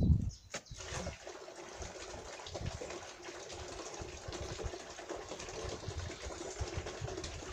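Water pouring steadily into a plastic barrel of chopped nettles, starting about a second in and stopping near the end. This is the water being added to the nettles to make nettle manure, about 10 litres to a kilo.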